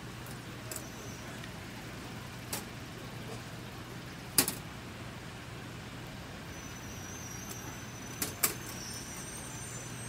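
New York City street ambience: a steady traffic rumble with a low hum underneath. Sharp knocks cut through it: one a couple of seconds in, a loud one near the middle, and two in quick succession near the end, with faint high squeals near the end.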